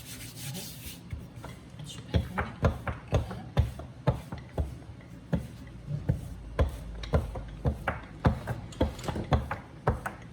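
Rolling pin and hands working thin dough on a wooden board: irregular light knocks and taps, several a second, starting about two seconds in.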